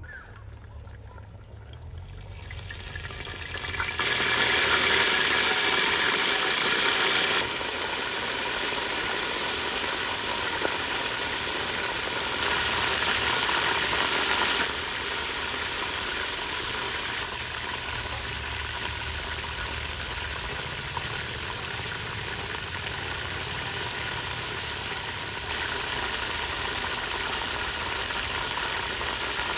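Water at a rolling boil in a large stainless-steel stockpot: a steady bubbling hiss with a low rumble underneath, louder twice in the middle.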